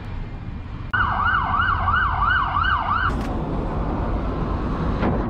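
Emergency vehicle siren in a fast yelp, a tone rising and falling about twice a second, sounding for about two seconds from a second in and cutting off suddenly, over a steady rumble of traffic.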